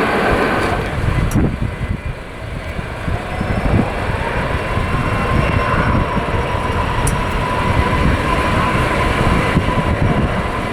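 Jet airliner engine noise: a steady whine that rises slightly about four seconds in and then holds, under heavy wind buffeting the microphone.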